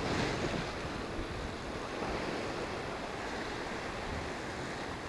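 Sea surf washing against the rocks, with strong wind buffeting the microphone: a steady rushing noise.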